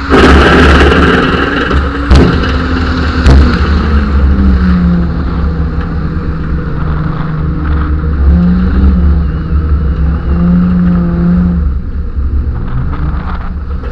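Ford Falcon's straight-six engine revving hard with tyre noise during a burnout, heard from a camera mounted on the car. It starts with a loud burst, then holds at steadier revs with small rises in pitch, and two sharp knocks come in the first few seconds.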